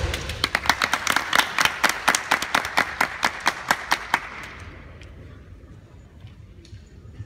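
Spectators clapping in a quick, even run of claps that dies away about four seconds in.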